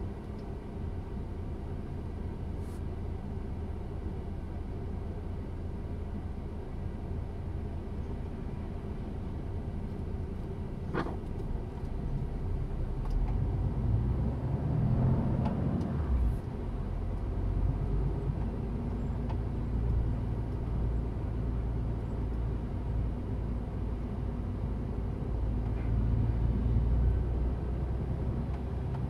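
Truck engine heard from inside the cab, running low and steady at first. About 13 seconds in it rises as the truck pulls away, then settles into a steady low drone as it drives on. A single sharp click comes shortly before it pulls away.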